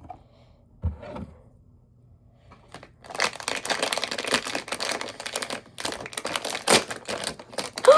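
Plastic packaging crinkling and rustling as a squishy is unwrapped from a mystery box, starting about three seconds in and going on as a dense crackle.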